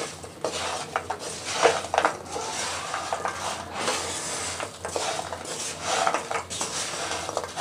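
Wooden spatula scraping around a pan in repeated strokes, stirring fried maida pieces through thick sugar syrup that is drying to a white coating.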